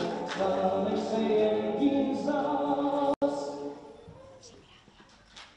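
A choir singing unaccompanied, several voices holding chords together. The sound cuts out for an instant about three seconds in, then the singing fades away and it is quiet near the end.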